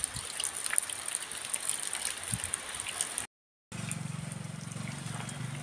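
Steady rain falling. After a short dropout in the sound, a small motorcycle engine runs steadily as it passes.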